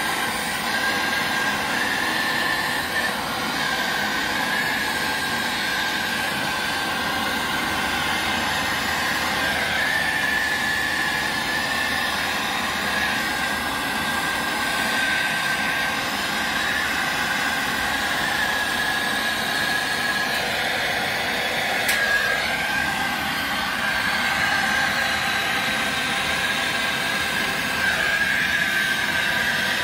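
Handheld MAP-Pro gas torch burning with a steady hiss and a thin, steady high whistle, its flame heating copper pipe fittings for sweat soldering.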